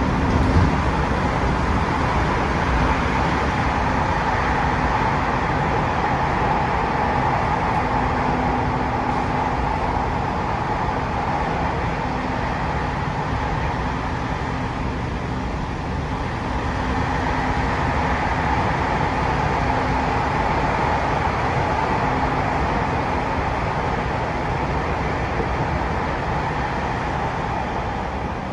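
Toei 6500 series subway car running through a tunnel, heard from inside the car: a steady rumble and roar of the train in motion, with a faint on-and-off low hum. The noise dips a little about halfway through, then comes back up.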